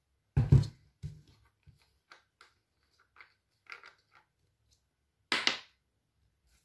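A plastic bottle of contact lens solution being handled on a table: a thump near the start as it comes down, then small clicks and plastic crackles as the cap is worked open, and a short, loud crackle about five seconds in.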